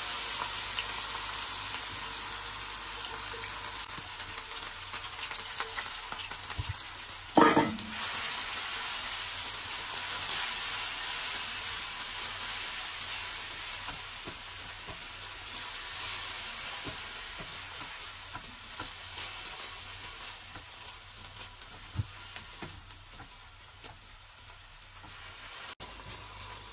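Grated apple frying in hot desi ghee in a nonstick kadai, sizzling as it is stirred and spread with a spatula. The sizzle is loudest at the start and slowly dies down. There is one sharp knock about seven seconds in.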